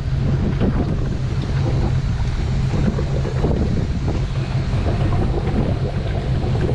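Wind buffeting the microphone, a steady low rumble, with water slapping against the boat hulls.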